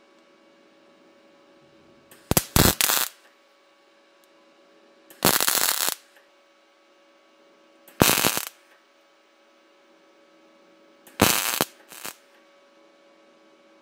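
Electric arc welding in short bursts, each a crackling sizzle of half a second to a second, about five times, as weld metal is built up on rust-pitted steel. Between the bursts a steady faint hum continues.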